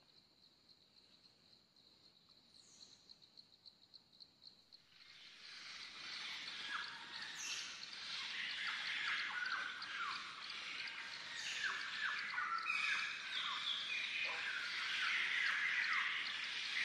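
A faint, high, rapidly pulsing insect trill, then from about five seconds in a louder chorus of birds chirping, with many short falling notes overlapping.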